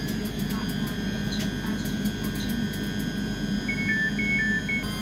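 ScotRail Class 385 electric multiple unit moving slowly along the platform, its traction equipment giving a steady low hum with several constant high whines and a few light clicks. Near the end a rapid two-tone beeping, alternating high and low about five times, sounds over it.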